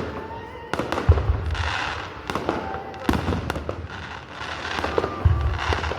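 Fireworks display going off: a string of sharp bangs at irregular intervals, with deep booming shell bursts about a second in and near the end, and crackling between them.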